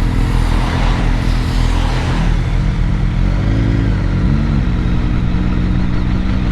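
BMW motorcycle engine idling, with two short throttle blips about three and a half and four and a half seconds in. A brief rushing noise runs over it in the first two seconds.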